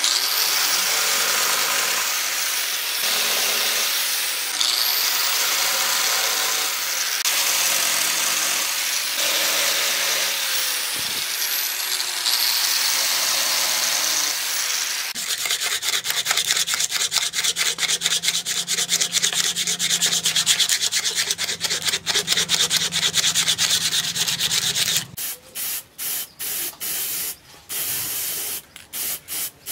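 Angle grinder with a sanding disc sanding a wooden handle, its motor pitch dipping and recovering as the disc is pressed on and lifted. Near the end, a series of short hissing bursts from an aerosol spray can coating the sanded handle.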